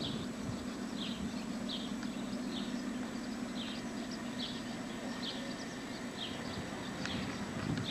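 Steady low drone of a distant diesel locomotive engine running, with a bird repeating a short high chirp about once a second.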